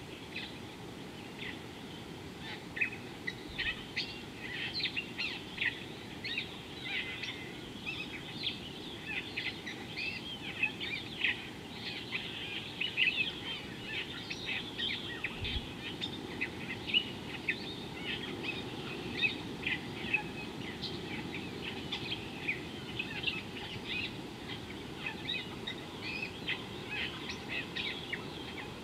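Small birds chirping and calling in quick, short notes, many overlapping into a dense chorus, over a steady low background noise.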